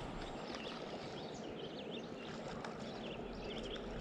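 Steady rush of flowing stream water, with small birds chirping in quick, repeated short notes over it.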